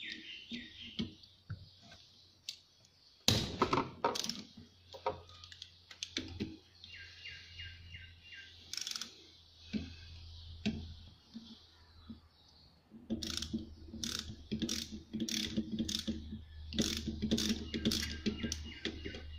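Metal clicks and knocks from a ratchet wrench being worked on the injector pipe fittings of a Nissan RD28 diesel injection pump. From about two-thirds of the way in comes a run of quick clicks, about two a second, over a low steady hum. Birds chirp in the background.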